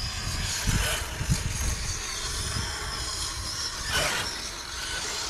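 Brushless electric RC buggies driving away up a sand dune, their motors giving a faint high whine that rises and falls, with a louder burst about four seconds in. Low rumbling from wind on the microphone runs underneath.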